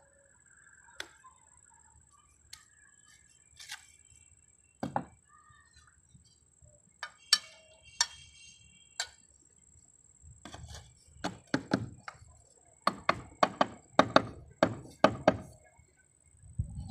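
Terracotta barrel roof tiles being handled and set in mortar: sharp knocks and clinks of clay on clay and on the concrete roof. A few scattered taps come first, then a quick run of heavier knocks from about ten seconds in.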